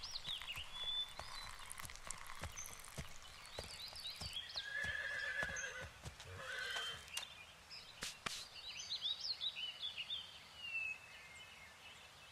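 Forest ambience: several birds chirping with short, quick calls that swoop up and down, over a faint hiss, with scattered light crackles and ticks.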